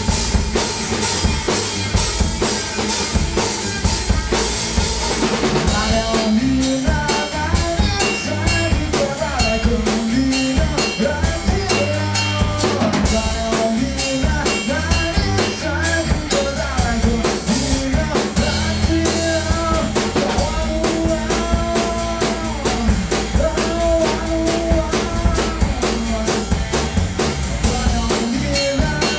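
A small band playing a blues song live, with drum kit, electric bass and electric guitar. About six seconds in, a bending melodic lead line comes in over the beat.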